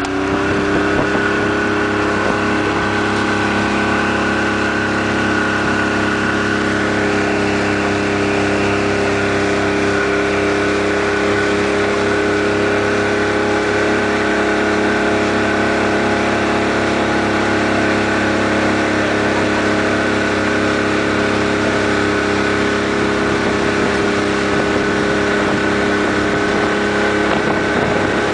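Motorboat engine running steadily at towing speed: it climbs a little in pitch in the first second, then holds level. The rush and hiss of the boat's wake run underneath.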